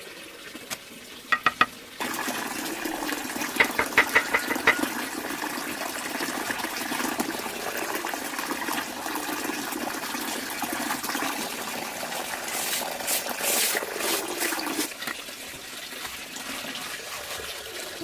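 Steady rush of running water that starts about two seconds in and stops about fifteen seconds in, with a few quick ticks about four seconds in.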